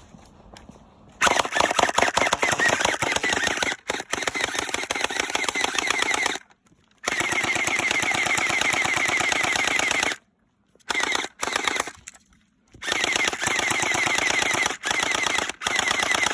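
Gel blaster firing on full auto: a rapid, even clatter of shots with a high whine running under it. It comes in several long bursts of a few seconds each, with two short ones in between and brief silent gaps.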